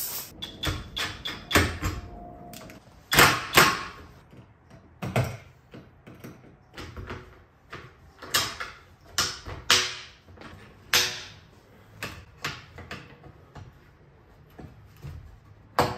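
Irregular clicks, knocks and rattles of gloved hands fitting metal hardware and cables onto a solar-panel mounting rail, with a few louder knocks among them.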